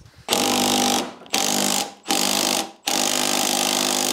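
Cordless impact wrench hammering in four bursts of the trigger, the third tailing off. It is driving the screw of a clamp-type coil-spring compressor to squeeze the thick coil spring off a strut.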